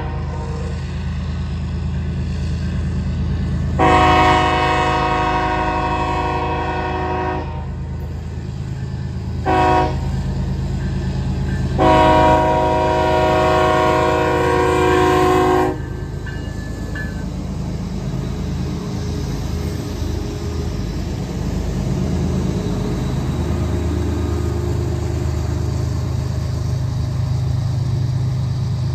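The Nathan K5HL five-chime air horn of a BNSF ES44AC-H diesel locomotive sounds the grade-crossing signal: the tail of one blast, then long, short, long, the last blast cutting off just after the locomotive passes. Under the horn the locomotive's diesel engine runs hard, working up a steep grade with a loaded coal train, and after the horn the train's cars roll past.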